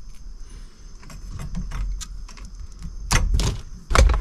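Handling noise as the old turn signal switch's wiring harness is worked up through the steering column: light rustling and small clicks, then a few sharp clatters about three seconds in and again near the end.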